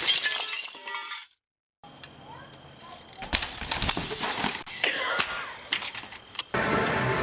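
Muffled knocks and clatter of a small bike and its helmeted rider falling at the foot of a wooden quarter-pipe ramp, with a few sharp hits. Band music fades out in the first second.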